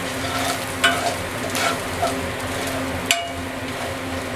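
Turmeric and chili powder sizzling steadily in hot mustard oil while a metal spatula stirs them around a metal pan. The spatula knocks or scrapes sharply against the pan three times.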